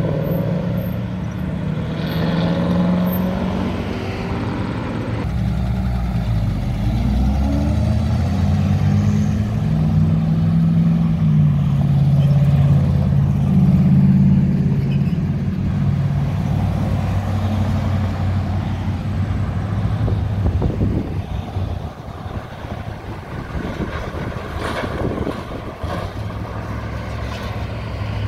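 Cars and pickup trucks driving past one after another, engines running and tyres on the road, loudest a little before the middle and quieter near the end.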